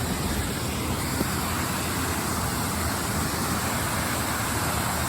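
Waterfall running high with spring rain: steady rushing of falling water.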